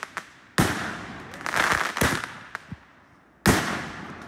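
Aerial firework shells bursting overhead: a sharp bang about half a second in, a spell of dense crackling, a few small pops, then a second sharp bang near the end.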